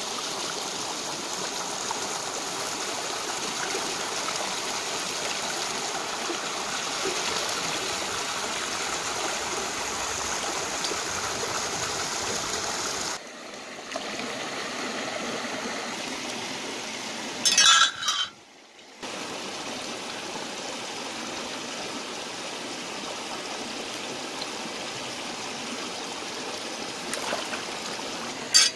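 Shallow stream running over rocks, a steady rush of water. Twice, about two-thirds of the way in and again at the very end, a brief loud knock or bump cuts across it.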